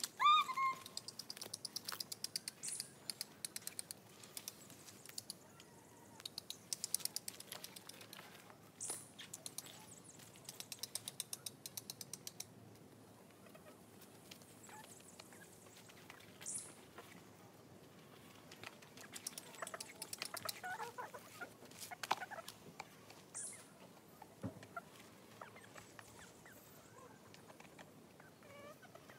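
Chickens clucking and calling faintly, with several runs of quick, high ticking.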